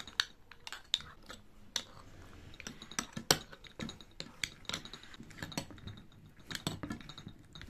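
Metal spoon clinking and scraping against a ceramic bowl and the rim of a glass jar as chunks of spiced cucumber pickle are spooned into the jar: a run of irregular clicks and taps, one sharper clink about three seconds in.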